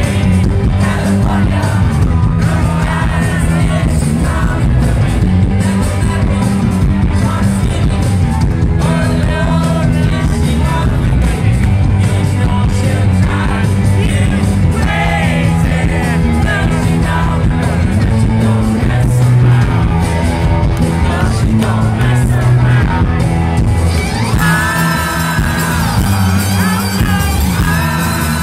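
Rock band playing live at full volume: electric guitars, bass and drums under a male lead singer's voice.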